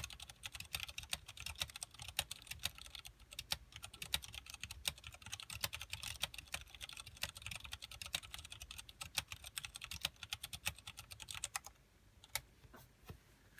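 Fast, steady typing on a KBP V60 mechanical keyboard with tactile Cherry MX Clear switches, Tai Hao PBT keycaps and a TEX acrylic case. The typing stops abruptly near the end, leaving a few single keystrokes.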